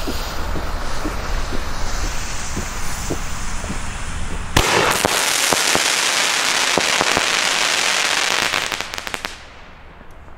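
Firework bomb tube (Bombenrohr): the lit fuse hisses, then about four and a half seconds in the tube goes off with a sharp bang, followed by about four seconds of hissing and dense crackling from the aerial effect, dying away near the end.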